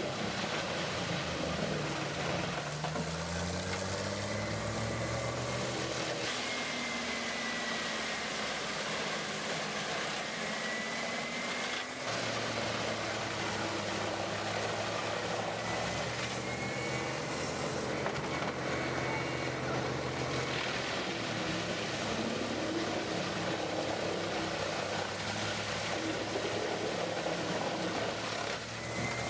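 Heavy diesel-powered machinery running steadily, with the engine pitch rising and falling several times as it works under varying load, and abrupt changes about twelve seconds in and near the end.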